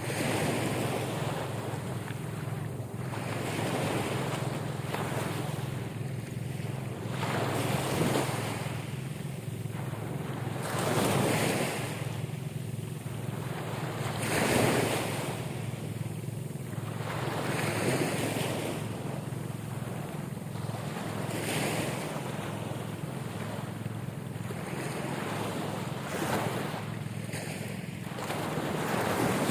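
Ocean waves surging and washing in again and again, each surge swelling and falling away over a few seconds, with wind buffeting the microphone and a steady low hum underneath.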